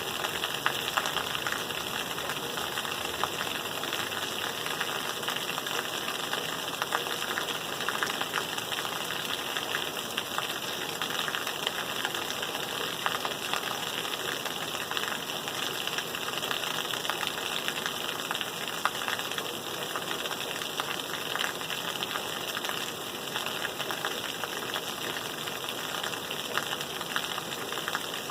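Steady rain: an even, unbroken hiss of many drops, brightest in the upper-middle pitches.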